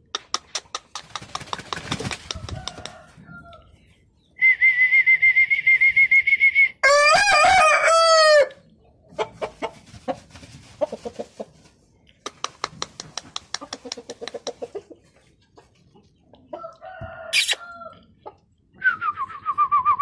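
Game chickens calling: a rooster crows once, about four to eight seconds in, a long steady high note breaking into a wavering lower one. Runs of rapid clicking clucks come before and after, and a short falling call sounds near the end.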